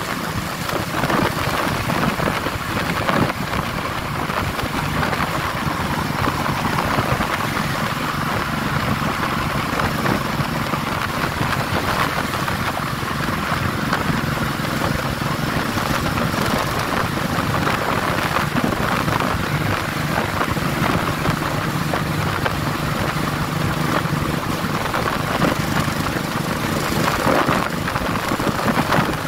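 Motorcycle riding at a steady speed: its engine is a low steady note beneath a loud, constant rush of wind over the microphone.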